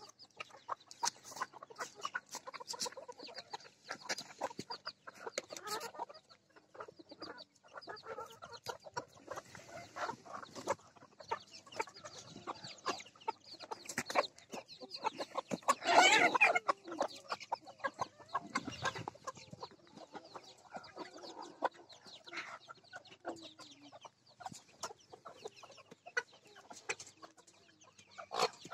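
Flock of Pekin bantam chickens clucking, in many short calls. About halfway through one bird gives a louder, longer call.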